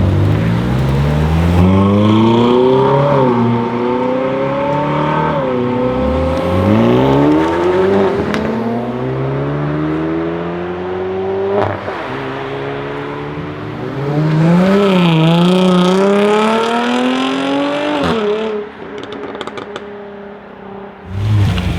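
Hyundai i30 N's 2.0-litre turbocharged four-cylinder engine accelerating hard in two separate pulls, its pitch rising through the gears with a quick dip at each upshift. A couple of sharp exhaust cracks come between the pulls.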